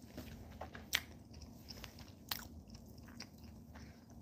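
A person chewing a mouthful of gyoza (a pan-fried dumpling) with the mouth closed, quietly, with a few short faint clicks.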